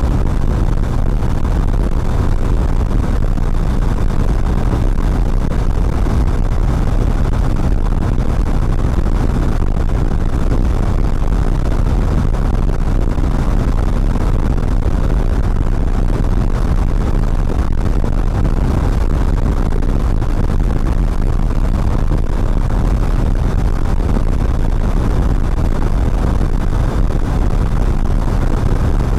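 Motorcycle ridden fast on an open road: a steady, unbroken rush of engine and wind noise.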